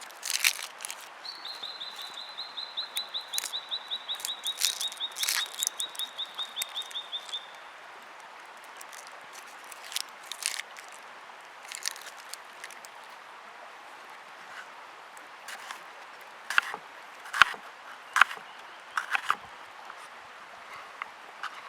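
A bird's long, rapid trill of repeated high notes, falling slightly in pitch, lasting about six seconds from near the start. Scattered sharp clicks and knocks come and go throughout.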